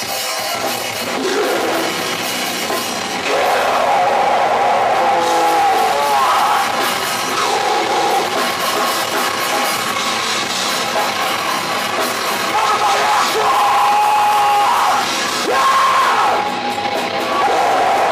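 Heavy metal band playing live and loud: distorted guitar, bass and drums, with some crowd noise.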